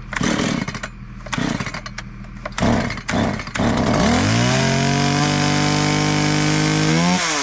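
Small two-stroke chainsaw being pull-started: after a few short bursts it catches about four seconds in, its pitch rising and then holding steady. Near the end the pitch dips and climbs as the throttle is worked.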